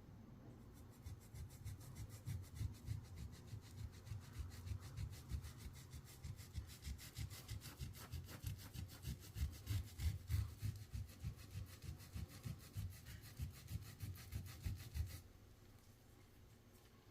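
Stiff brush scrubbing travertine tile and grout by hand in quick back-and-forth strokes, about two to three a second, to lift dirt and efflorescence. The scrubbing stops about two seconds before the end.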